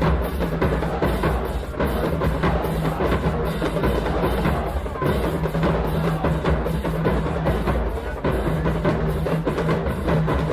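HBCU marching band playing a song: a rapid, steady drum beat with bass drums under a low held bass note.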